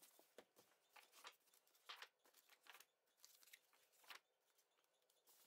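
Thin pages of a hardcover dictionary being turned and leafed through: a string of faint, brief paper rustles.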